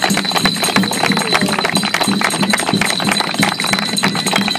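A group of people clapping in applause, with music playing underneath.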